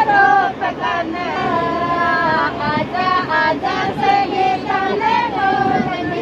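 Women singing a Rajasthani Shekhawati sithna, a teasing wedding folk song, in a high register.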